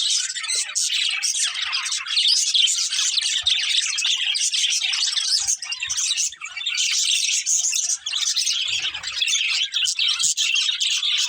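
Budgerigars chirping and chattering, a dense, unbroken run of rapid high chirps.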